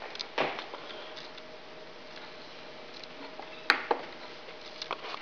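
A few light knocks and clicks, with one sharp click near the end, over a faint steady hum and room hiss.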